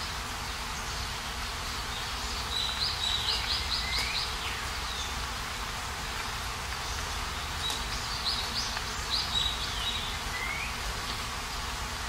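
Steady hiss of falling rain with a songbird singing two short phrases of rapid, high trilled notes, about three seconds in and again about eight seconds in.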